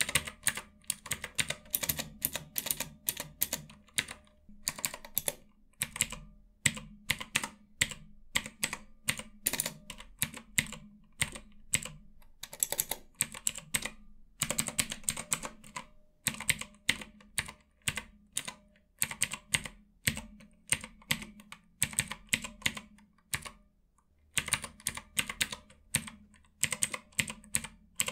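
Keys of a ROTTAY mechanical numpad with Outemu Blue clicky switches being typed on in a steady run of sharp clicks, with a brief pause near the end.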